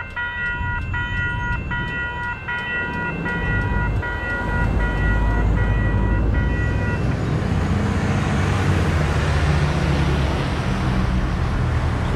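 Railroad crossing warning bell ringing in a steady repeating pattern while the gate arms rise after the train has passed; it cuts off about seven seconds in, once the gates are up. Cars then drive across the tracks, and their engine and tyre noise builds.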